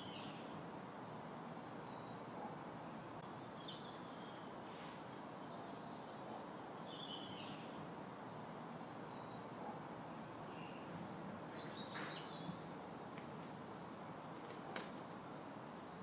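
Steady outdoor background noise with short bird chirps scattered through it, and a few faint clicks in the last few seconds.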